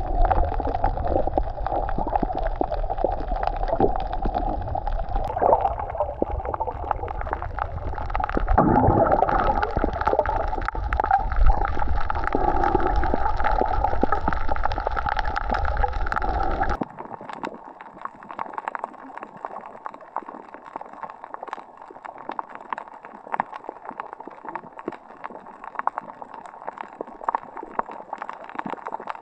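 Water gurgling and sloshing with a low rumble. About two-thirds of the way through it cuts off abruptly to a quieter stretch of fine crackling clicks.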